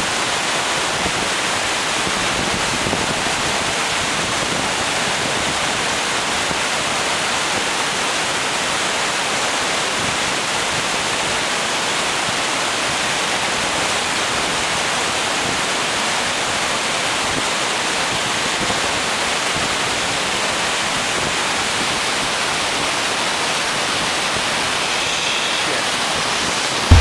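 Steady rush of whitewater rapids: river water pouring over and around boulders.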